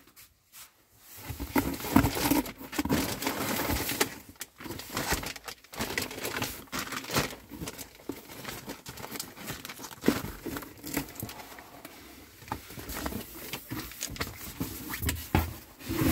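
Clear plastic bags of small model-kit parts crinkling and rustling as they are handled and lifted out of a cardboard box, with irregular small clicks and taps as items are set down on the table.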